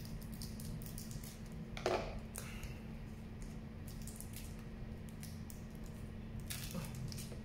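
Scissors snipping open a foil trading-card booster pack, then the wrapper crinkling as the cards are slid out. It comes as a run of small clicks and rustles, with a louder crackle about two seconds in.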